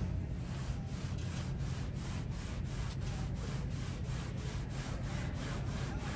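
Shoeshine cloth rubbed briskly back and forth over a black leather New Balance sneaker, buffing it in an even rhythm of about three to four strokes a second.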